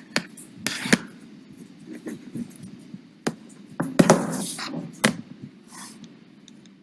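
Scattered clicks and knocks of objects being handled, with a louder clatter about four seconds in.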